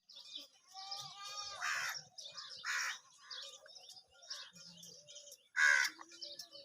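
Birds chirping continuously with quick high notes, broken by three loud harsh calls, the last and loudest near the end.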